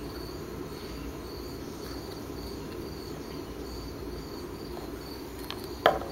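Faint insect-like high chirps repeating evenly, about two a second, over a low steady room hum, fading out about halfway. Near the end there is one short, sharp, loud squeak-like sound.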